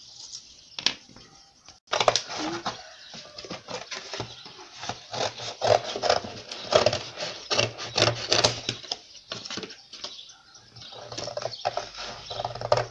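Cardboard being handled and rustled: irregular scraping, crinkling and tapping that starts suddenly about two seconds in and goes on densely.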